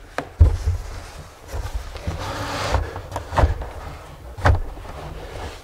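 Bare MDF wedge subwoofer box being shoved into place in a car trunk: a few knocks of wood against the trunk and a scrape as it slides over the trunk carpet.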